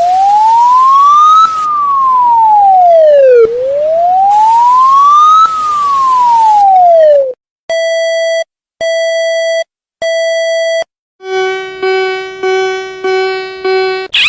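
Electronic warning siren wailing slowly up and down twice, each rise and fall taking about four seconds. It is followed by three long, steady beeps, then a quick run of about five pulsing tones near the end.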